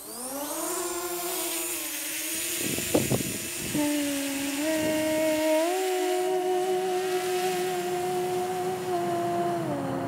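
DJI Mavic Mini quadcopter's propellers spinning up with a quickly rising whine, then the drone lifting off and flying with a steady buzzing hum. The hum steps up in pitch twice around the middle and drops a little near the end, and a few brief thumps come about three seconds in.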